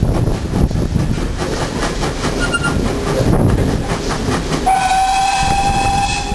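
Steam train running, with a steady rumble and wind buffeting the microphone. Near the end the steam locomotive's whistle sounds one long steady note.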